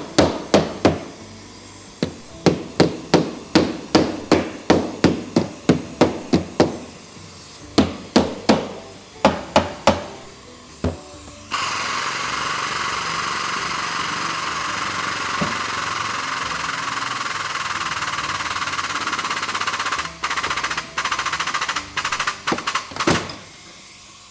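Hammer blows on the steel rear quarter panel of a car held under pull on a frame machine: sharp, ringing strikes at about three to four a second, in runs with short pauses. About halfway through they stop and a steady hiss runs for about eight seconds, then a few more blows come near the end.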